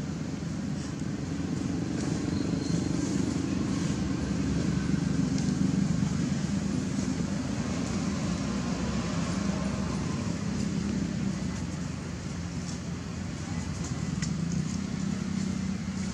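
Steady low rumble of motor-vehicle engines, swelling for a few seconds in the middle and again near the end.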